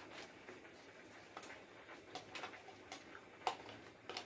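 Faint, irregular light clicks and taps of kitchen things being handled during cooking, about half a dozen over the four seconds.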